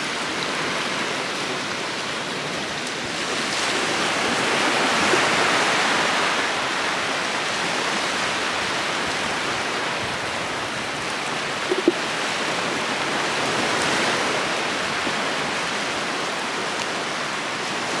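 Shallow surf washing in and out over the sand, a steady rushing that swells about five seconds in and again near fourteen seconds. There is one brief tick about twelve seconds in.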